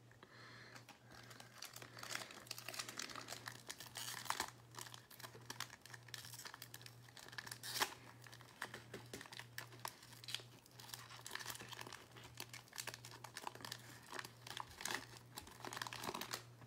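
Wrapper of a 2019-20 Panini Illusions basketball card pack being torn open and crinkled by hand, in irregular crackles, the loudest about halfway through.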